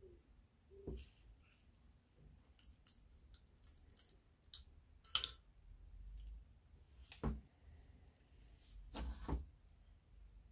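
Small metal brake parts clinking and clicking as a motorcycle front brake master cylinder is handled for reassembly, with a few bright, ringing clinks. Two duller knocks follow later as the cylinder body is set down on the bench.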